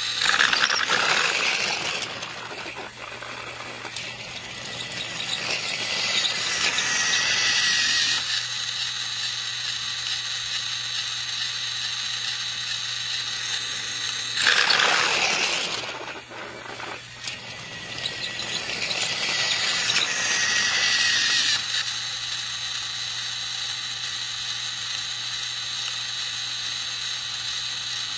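Battery-powered toy train's motor and gears whirring steadily as it runs around its track, swelling louder in a cycle of about every fourteen seconds as it comes close, with a thin high squeal on some of the louder passes.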